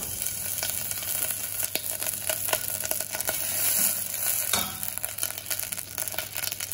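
Clarified butter sizzling as it heats in a stainless steel saucepan, with many small pops, while a spatula stirs it in the pan.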